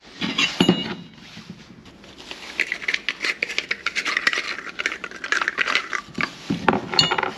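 Steel pulley parts and hand tools being handled on a wooden workbench: a ringing metal clink near the start and another near the end, with rustling and many small knocks and ticks in between.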